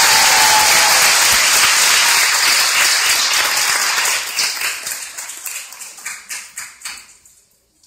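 Audience applauding. The dense applause thins to scattered separate claps about four or five seconds in and dies away near the end.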